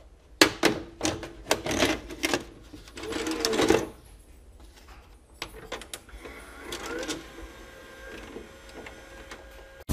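VHS cassette being pushed into a front-loading VCR: a run of sharp clicks and clunks as the loading mechanism takes the tape, a louder mechanical stretch, then quieter whirring of the deck's motors with a short rising whine near the middle.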